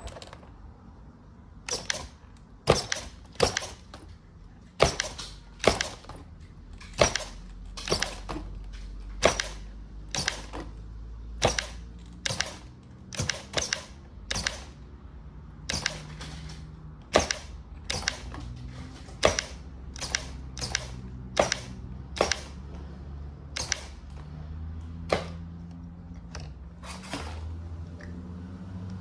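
Redcat Monte Carlo RC lowrider hopping on a hard wood-look floor: a string of sharp clacks, roughly one a second, as its suspension servos snap the body up and drop the wheels back onto the floor. A low motor hum runs underneath.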